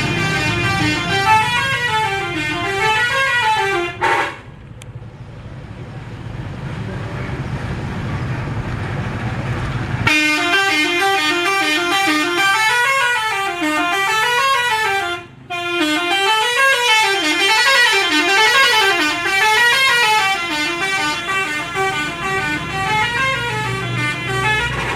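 Indonesian 'telolet' bus horns, multi-tone musical air horns, playing their warbling tune, the tones sliding up and down over and over. They sound for about four seconds and break off. After a quieter stretch of about six seconds they start again and play on, with a brief gap around the middle.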